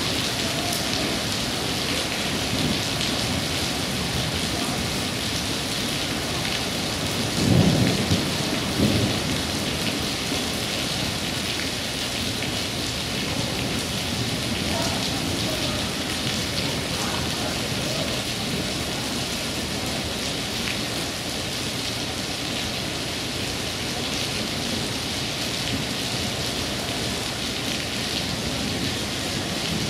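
Steady heavy rain hissing down, with a brief louder low rumble about seven to nine seconds in.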